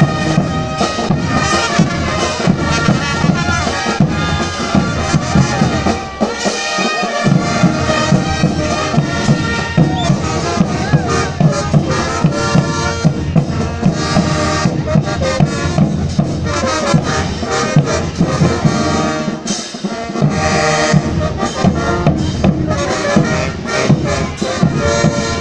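Andean festival brass band playing a lively dance tune: brass instruments over a steady drum beat. The low end drops out briefly twice.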